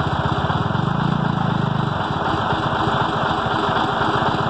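Diesel engine of a small narrow-gauge sugar-cane railway locomotive running steadily at low revs, with a low hum that swells briefly about a second in.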